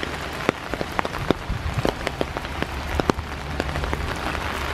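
Rain falling into a shallow pool of water: irregular, distinct drips and plinks of single drops hitting the surface over a steady patter, with a low steady rumble underneath.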